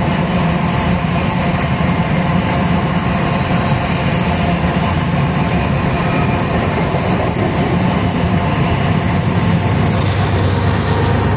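Loud, steady rumbling of a moving vehicle, with faint steady tones running through it.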